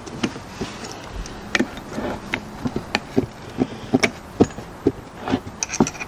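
Small metal parts of a VW rear disc brake caliper clicking and tapping as the pads and springs are fitted together by hand on a wooden table: an irregular run of light clicks, a few every second.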